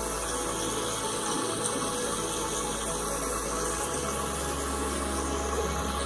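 Kitchen tap running a steady stream into a stainless steel sink, the water splashing on the metal basin. A low background music note sits underneath and changes pitch about four seconds in.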